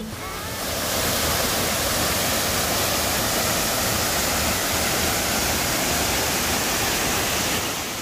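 Waterfall: a steady, even rush of falling water that fades in over the first second and fades down near the end.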